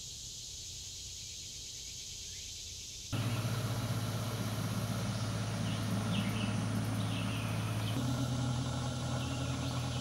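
Outdoor field ambience: quiet for about three seconds, then a steady low hum with short high chirps, which starts abruptly.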